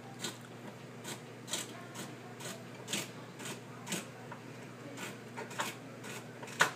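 Short scraping rubs from hands working in a stainless steel stockpot, about two a second and irregular, the loudest near the end, over a steady low hum.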